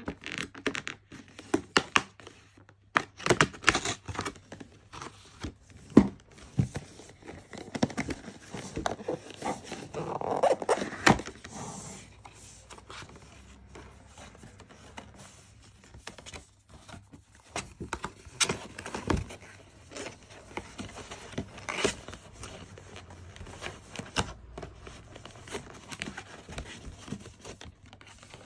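Cardboard display box being slit open and its lid lifted by hand: scraping and tearing along the seam with quick taps on the cardboard, busiest in the first twelve seconds, then sparser taps and rustles of the cardboard.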